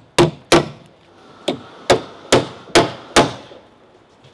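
A hammer striking timber while rafters are being joined. There are seven sharp blows at an uneven pace, some in quick pairs, each ringing briefly.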